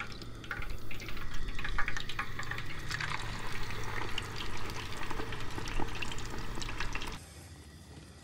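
Whole battered bluegill deep-frying in a pot of hot oil: a steady crackling sizzle that cuts off abruptly near the end.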